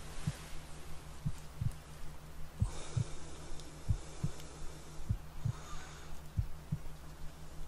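Slow heartbeat, a low lub-dub double thump about every 1.3 seconds, over the steady low hum of a theta-wave tone. A soft breath swells about three seconds in and again near six seconds.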